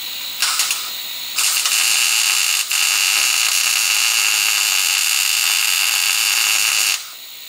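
MIG welder arc crackling as a steel patch bracket is welded overhead onto a car's front shock mount. A brief tack comes under a second in, then a steady weld of about five and a half seconds with one momentary break, cutting off sharply near the end.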